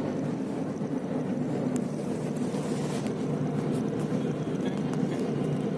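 Steady hum of a car on the move, heard from inside the cabin, with a few faint clicks.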